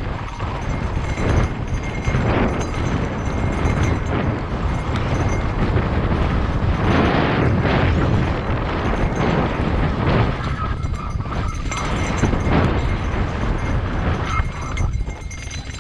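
Mountain bike descending a rocky dirt singletrack at speed. Wind rushes over the microphone while the tyres rumble and the bike rattles and knocks over rocks and ruts.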